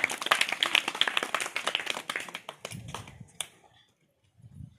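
Applause from a group of seated schoolchildren: many quick, uneven hand claps that thin out and stop about three seconds in, with one last clap just after.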